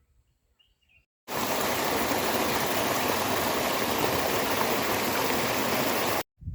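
Loud, steady rushing noise like running water or wind on a microphone. It starts abruptly about a second in and cuts off just as suddenly near the end.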